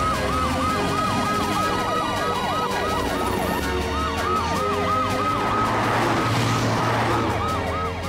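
Cartoon rescue vehicles' sirens wailing as they drive out, several sirens overlapping in a quick rise-and-fall a few times a second. The sirens fade near the end.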